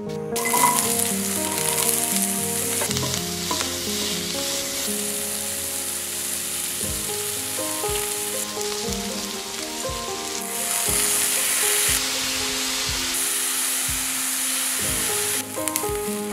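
Dried anchovies, onion and chili sizzling in hot oil in a wok as they are stirred with a spatula.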